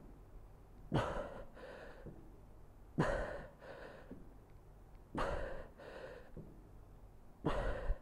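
A man breathing hard with effort through dumbbell reverse lunges. Each rep brings a strong, sharp breath followed by a softer one, four times, about every two seconds.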